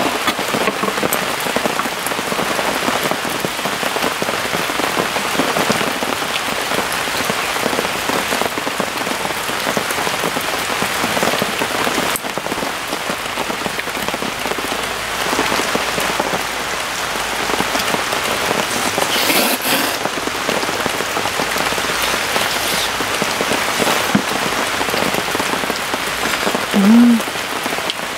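Heavy rain pouring steadily. A short low hum briefly rises above it about a second before the end.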